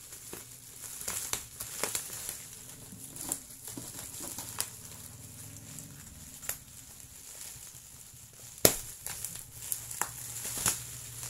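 Plastic bubble wrap, a thin single-layer kind, crinkling and crackling as it is handled and pulled off packages by hand, with scattered sharp crackles and one louder snap about three quarters of the way through.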